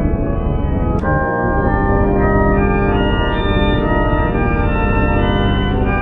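Loud, organ-like sustained chords of electronically processed sound, the held tones shifting to new pitches every second or so, with a sharp click about a second in.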